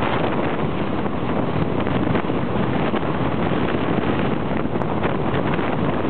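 Strong wind buffeting the camera's microphone: a steady, loud rush of noise with no break.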